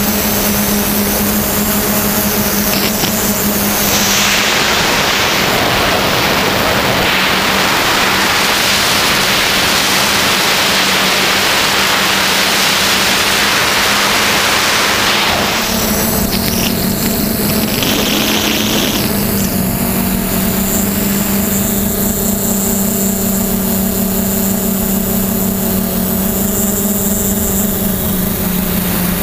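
A small camera drone's electric motors and propellers humming steadily in flight. A loud rushing noise covers the hum for about eleven seconds in the middle.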